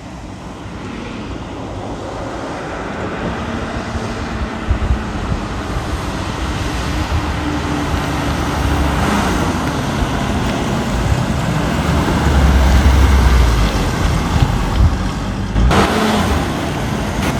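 1965 Ford Mustang being driven, its engine running under road and wind noise that builds as the car gathers speed, loudest about three-quarters of the way through, with a brief sharp burst of noise near the end.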